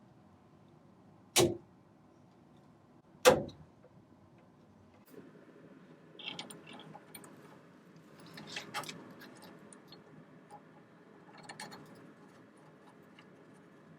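Two sharp knocks about two seconds apart, then several seconds of light clinking and rustling handling noise with scattered small clicks.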